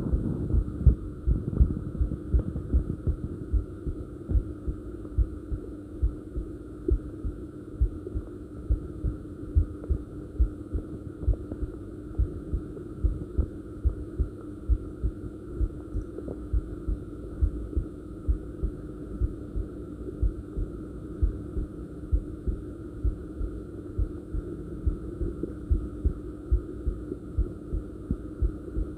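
A person's heartbeat heard close up: a steady, regular run of low thumps over a constant low hum.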